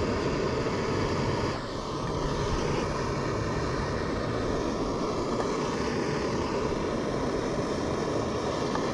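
Backpacking gas stove burning steadily under the cooking pot, a constant rushing noise with a brief dip about a second and a half in.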